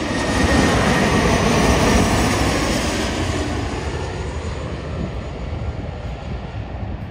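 Jet engines of a twin-engine regional jet on final approach passing low overhead: a loud rushing roar that is at its loudest in the first couple of seconds, then slowly fades as the plane moves away.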